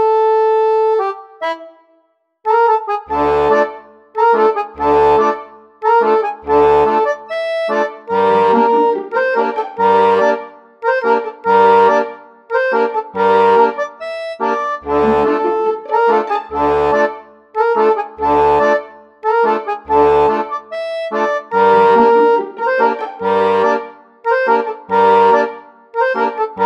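Background instrumental music: a melody over low bass notes that fall about every one and a half to two seconds. It breaks off briefly about two seconds in, then starts again.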